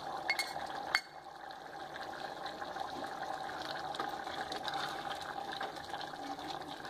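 Two sharp metal clinks in the first second as a steel cup taps the rim of an aluminium pressure cooker, then a wooden spatula stirring thick chicken gravy in the pot with soft scrapes and faint ticks over a steady background hiss.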